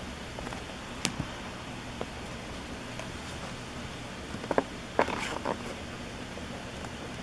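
Trading cards being handled: a few light clicks and, about five seconds in, a short cluster of clicks and card rustle over a steady background hiss.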